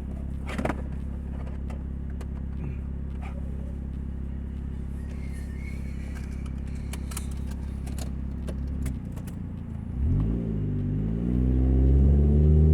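2000 Nissan Altima's four-cylinder engine with a leaking exhaust: a steady low drone at idle, then about ten seconds in it pulls away, the note climbing, dipping and climbing again and growing louder.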